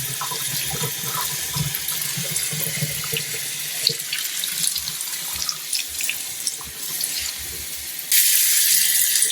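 Water running from a tap and pouring over a dog's fur to soak the coat, with small splashes. About eight seconds in the flow gets louder and hissier.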